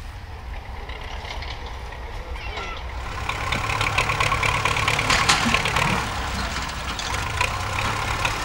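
A vehicle engine running, with a steady low hum and a clattering noise that grows louder about three seconds in.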